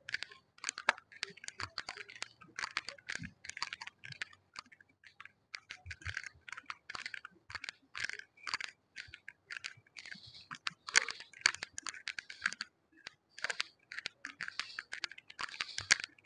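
Footsteps of a person walking: a steady run of short, crisp scuffs, about two a second.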